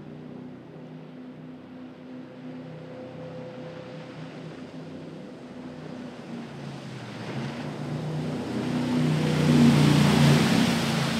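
Jet boat engine running at speed with the rush of its wake and spray. The sound swells in the last few seconds as the boat passes close and a sheet of spray splashes over the microphone.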